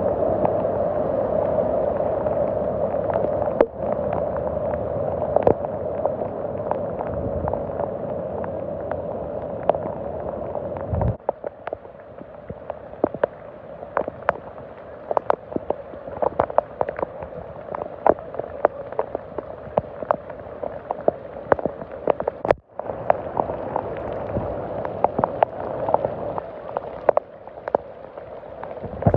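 Floodwater surging and splashing as a vehicle drives through a flooded street. About a third of the way in it gives way to quieter steady rain on standing floodwater, with many sharp drop ticks.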